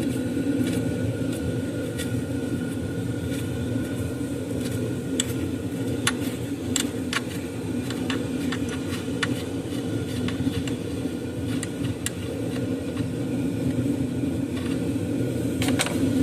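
Steady low background rumble, with scattered, irregular light clicks and clinks of hand tools and metal parts while fasteners are worked loose in the engine bay.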